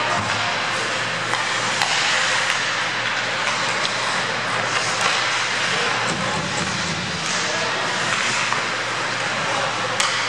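Ice hockey play in a rink: skates scraping the ice and sticks clacking, with a sharp crack of stick or puck about two seconds in and another near the end, over a steady low hum.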